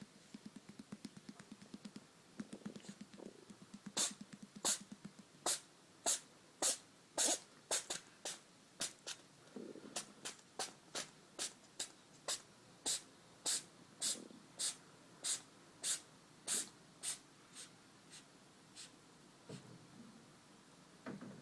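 A congested domestic cat sneezing in a long fit: a few seconds of snuffly breathing, then a run of short, sharp sneezes about one and a half a second, loudest at first and growing fainter, with wet snuffles between them. The cat has a cold.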